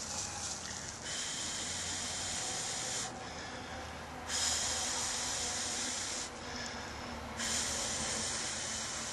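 Hand drill friction fire: a spindle with a hemlock root plug spun between the palms, its tip grinding into a sunflower root hearth. It comes in three runs of about two seconds each, with short pauses between.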